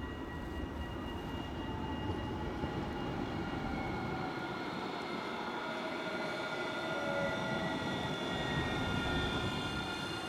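Alstom Citadis tram approaching over the rails, growing louder as it nears, its electric drive whining in several thin tones that slide down in pitch.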